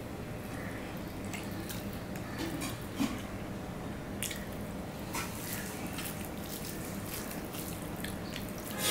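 Close-up sounds of eating by hand: fingers squishing rice mixed with curry on a steel plate, and wet chewing with small lip smacks and clicks, one sharper click about three seconds in, over a steady background hiss.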